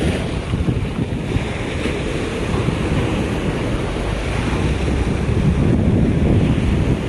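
Wind buffeting the microphone over the steady rush of surf breaking on a beach.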